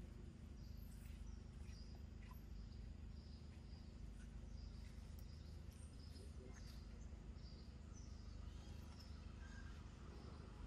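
Faint outdoor ambience: a steady low hum with scattered faint, short, high chirps.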